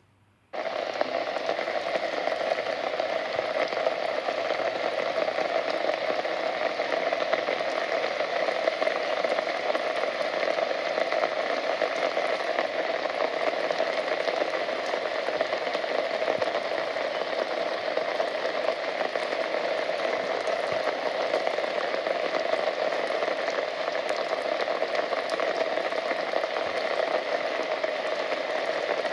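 Rain falling steadily, an even hiss of drops that starts suddenly about half a second in.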